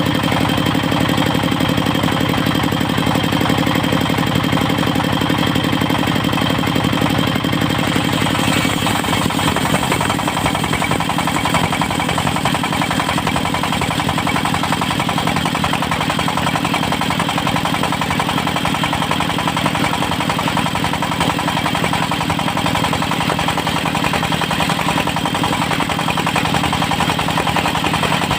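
Engine of a portable circular sawmill running steadily, its note changing about eight and a half seconds in.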